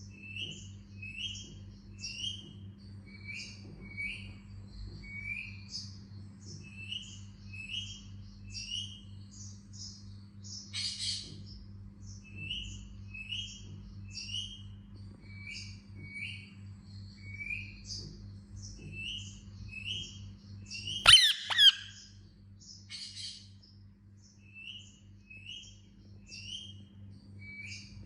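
Indian ringneck parakeet chirping: a steady run of short, falling chirps, one every half second or so, with higher notes mixed in. A louder call comes about a third of the way in, and a loud, harsh squawk comes about two-thirds through. A steady low hum sits underneath.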